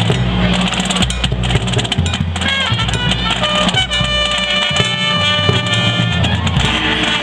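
High school marching band playing: brass holding chords over drums, timpani and mallet percussion, with the brass chords building from about two seconds in.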